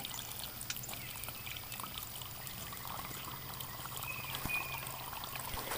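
Water poured in a steady trickle from a plastic spout into a small funnel set in a buried terracotta olla, filling it.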